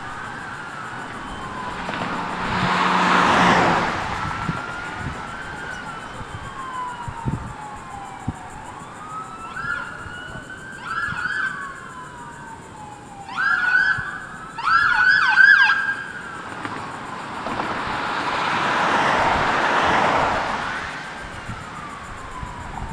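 Police sirens wailing, several slow falling sweeps overlapping, with a louder run of rapid yelp sweeps a little past the middle. Two passing vehicles add a swell of tyre and engine noise, one near the start and one late on.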